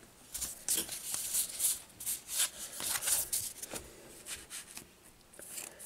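Baseball trading cards being handled on a tabletop: a run of short papery swishes and taps as cards are slid and set down on the piles, thinning out near the end.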